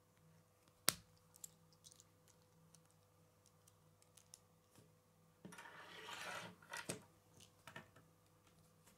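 Small plastic K'nex parts clicking as wheels are pushed onto a rod, with one sharp snap about a second in and scattered lighter clicks. Around six seconds in there is a longer scraping rustle of plastic parts being handled, ending in another click.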